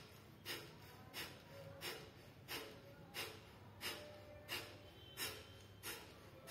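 Kapalbhati breathing: a steady series of short, forceful exhalations through the nose, about three every two seconds, each a sharp puff of breath. Only the out-breath is pushed; the in-breath follows passively between strokes.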